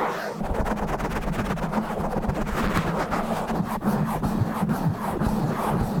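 Fingers and nails scratching fast and hard on a microphone's foam windscreen, right on the capsule: a dense, rough scratching made of rapid strokes. A low rumble from the hands working the microphone comes in under it shortly after the start.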